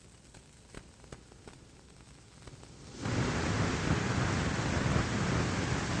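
A steady rushing noise, like heavy rain, cuts in suddenly about halfway through. Before it there are only faint scattered ticks.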